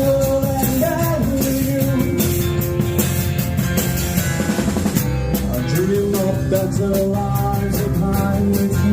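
A live band playing a yacht-rock song: drum kit with cymbals keeping a steady beat, guitar, and a singer's voice over it.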